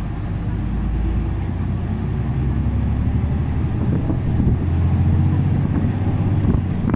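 Keio city bus's engine running, heard from inside the passenger cabin as a steady low drone that grows louder over the first few seconds as the bus gathers speed.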